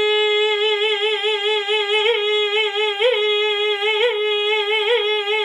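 A woman's voice holding one long sung note of a Turkish folk uzun hava, ornamented with fast vibrato and quick upward throat flicks (gırtlak çarpması, the hançere technique), four of them about once a second from about two seconds in.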